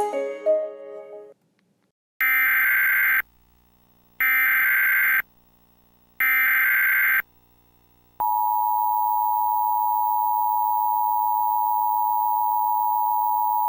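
Emergency Alert System tornado warning tones. The last second of a piece of music ends, then the SAME digital header plays as three one-second bursts of data tones about a second apart. About eight seconds in, the steady two-tone EAS attention signal (853 and 960 Hz together) starts and holds.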